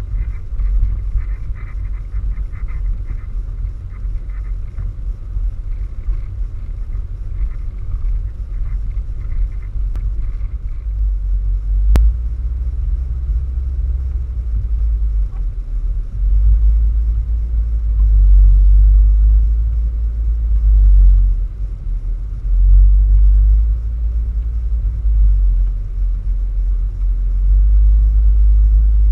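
Wind buffeting the microphone: a low rumble that swells and eases in gusts, strongest in the second half, with a single sharp click about twelve seconds in.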